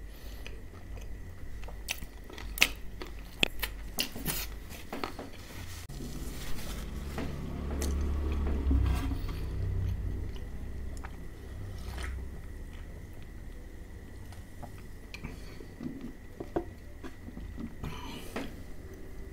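Close-miked chewing with sharp crunches of crispy fried chicken coating in the first few seconds. From about six seconds in comes a longer stretch of swallowing cola drunk from a can, loudest around the ninth second, followed by quieter wet chewing.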